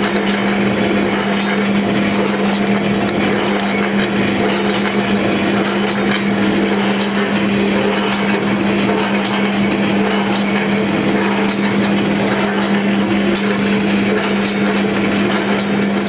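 Motorised stirrer of a gas-fired stainless-steel cooking kettle running steadily, mixing oil and turmeric in the pan. It makes an unbroken hum over a constant hiss.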